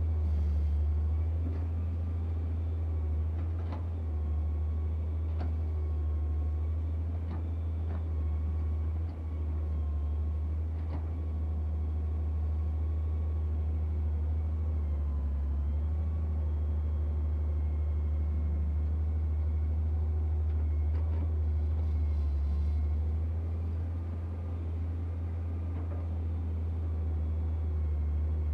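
Daewoo excavator's diesel engine running steadily at working speed, heard from the operator's seat, with a deep steady hum and a thin whine from the hydraulics. Short sharp knocks come every second or two in the first half and a few times later, as the arm and bucket dump and dig soil.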